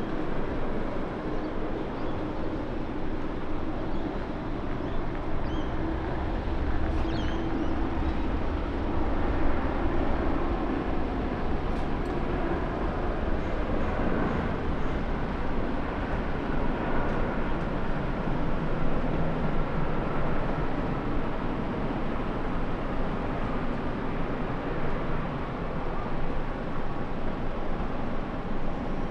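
Jet engines of an Airbus A350-900 (Rolls-Royce Trent XWB) running as it lands and rolls out on the runway: a steady engine noise with a low rumble that swells about a third of the way through, over a faint whine.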